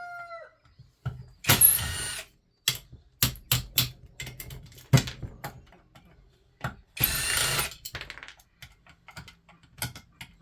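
Metal ceiling-fan parts clanking, knocking and rattling as they are worked apart, in a string of sharp knocks and clicks. Two short, harsher bursts of noise come about a second and a half in and about seven seconds in.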